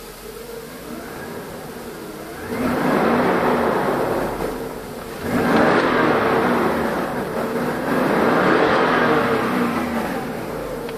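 Mercedes-Benz W140 S500's 5.0-litre V8 revved while standing still, heard from inside the cabin. The revs climb about two and a half seconds in, drop briefly around five seconds, then rise again and hold before falling away near the end.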